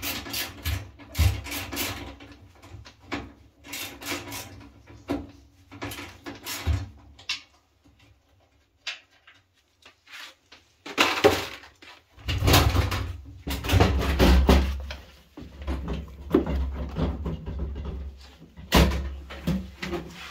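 Irregular knocks, clicks and scraping of objects being handled, with a low rumble joining in about twelve seconds in.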